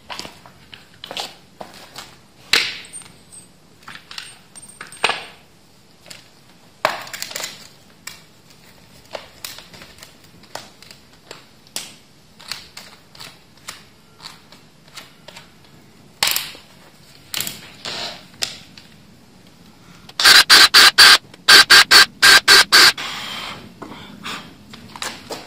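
Screws and driver bits clicking and clinking as they are handled, then a cordless driver fixing wooden slats with screws in two loud stuttering runs of rapid strokes, each about a second long, near the end.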